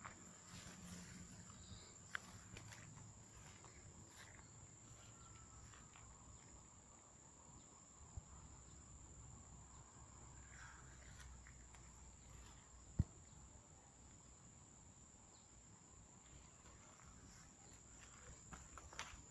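Faint, steady, high-pitched chirring of insects, with a single sharp click about two-thirds of the way through.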